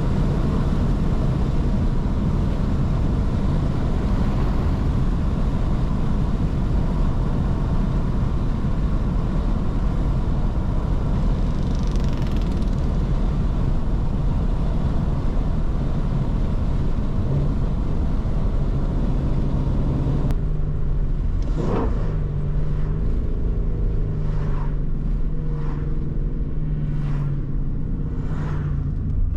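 Shelby GT350's 5.2-litre flat-plane-crank V8 running while driving, under steady road and wind noise. About two-thirds of the way through, the hiss drops away suddenly, leaving a steady low engine drone with a few brief clicks.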